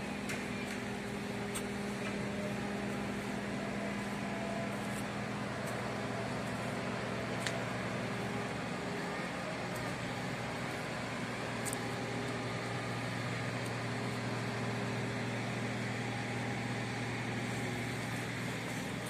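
Steady drone of heavy construction machinery engines, its hum settling to a lower pitch about halfway through, with a few faint clicks.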